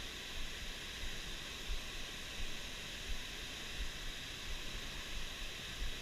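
Steady hiss of flowing creek water, with wind buffeting the microphone in irregular low rumbles.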